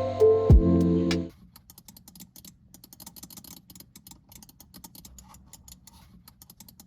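Razer DeathAdder Elite mouse buttons being clicked over and over, the sharp clicks of their microswitches in a sound test of the old and the new Kailh GM 2.0 switches. Music plays for about the first second before the clicking starts.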